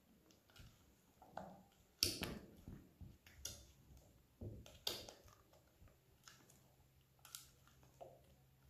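Hand utensil stirring and folding thick lemon custard into whipped cream in a mixing bowl: soft scraping and squelching of the cream, with a few sharp knocks of the utensil against the bowl's side about every second and a half.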